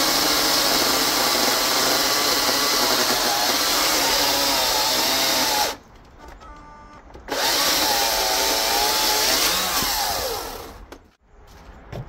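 Greenworks 82-volt cordless chainsaw (82CS34) cutting through a red oak log, its motor pitch wavering under load. It stops for about a second and a half some six seconds in, starts again, then winds down with a falling whine near the end. It is running on the smallest 4 Ah battery, which did badly enough in the cut that the owner would not use it again.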